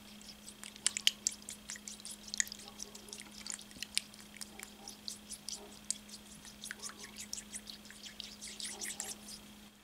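Metal spoon stirring a thin liquid in a small glass bowl, with light, irregular clicks and scrapes of the spoon against the glass throughout.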